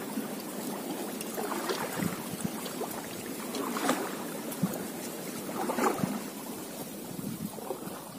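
Kayak paddle strokes splashing in the river, a stroke about every two seconds, over a steady wash of moving water.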